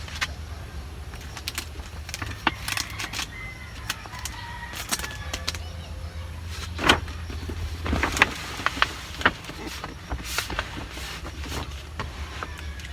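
Irregular clicks, taps and rustles of a cardboard sign being handled and fixed in place, over a low steady hum.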